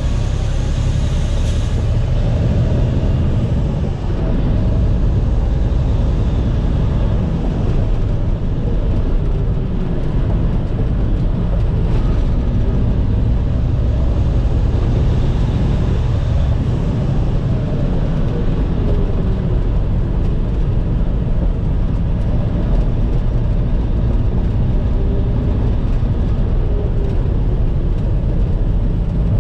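Caterpillar C13 ACERT diesel of a Kenworth T800 dump truck running under load, heard from inside the cab while driving. The engine pitch rises and falls several times as it works up through the gears.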